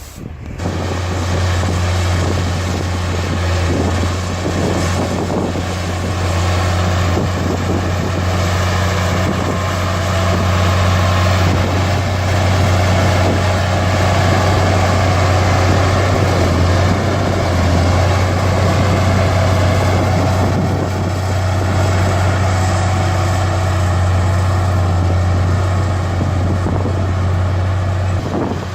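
Heavy earthmoving machine's diesel engine running steadily, with a strong low drone under a dense mechanical noise.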